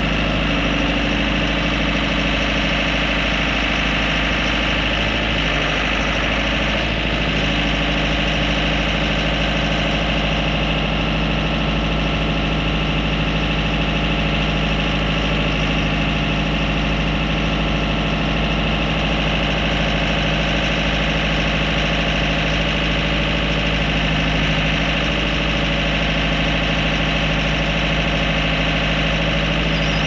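John Deere 5125R tractor's four-cylinder diesel engine idling steadily.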